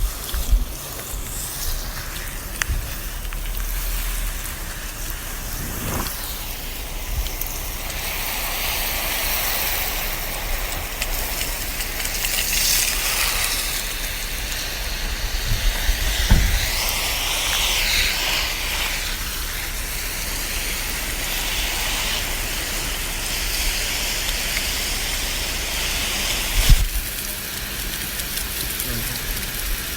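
Garden hose spraying water onto plants: a steady hiss and patter of spray on leaves and soil that swells and eases as the stream moves, with a few soft knocks.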